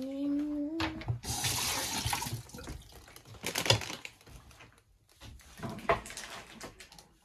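Water running from a tap into a sink for about two seconds, then two shorter gushes. A short rising whine comes just before the water starts.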